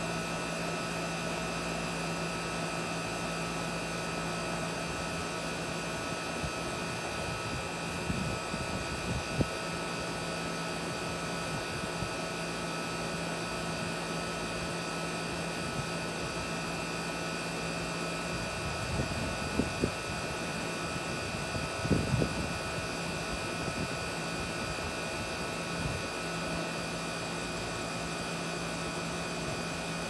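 Outdoor condensing unit of a central air conditioner running steadily: a constant hum from the compressor and condenser fan, with several steady tones. A few brief low rumbles come in about eight seconds in and again around twenty seconds in.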